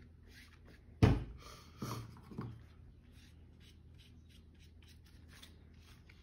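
Paintbrush strokes scraping softly over a paper plate as orange paint is brushed on, with a brief louder noise about a second in and two softer ones just after.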